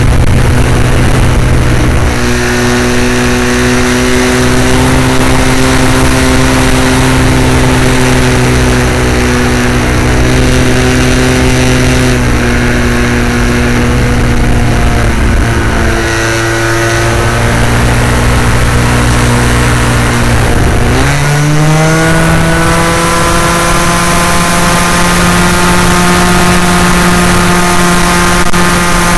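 An Edge 540 RC aerobatic model plane's engine and propeller running, heard loud and close from a camera mounted on the airframe, with wind rush. About 21 seconds in the throttle opens, and the pitch rises quickly and stays higher.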